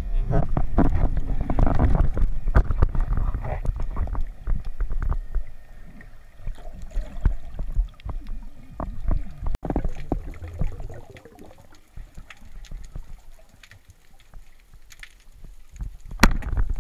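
Underwater noise picked up by a camera mounted on a speargun: water rushing and sloshing, with many scattered clicks and knocks. It is loud for the first few seconds, then quieter, with one sharp knock near the end.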